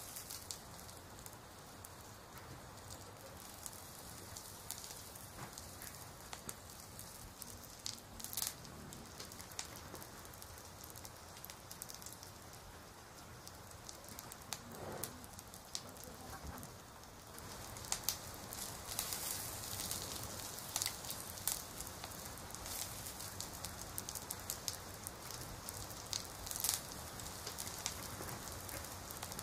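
Hands working in a plastic basin of water: light splashing and dripping with scattered small clicks. It grows a little louder and busier about two-thirds of the way through.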